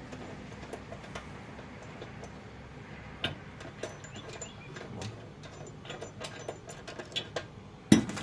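Scattered light metallic clicks and clinks of washers and a mower blade being handled and fitted onto the blade bolt, with one louder knock near the end.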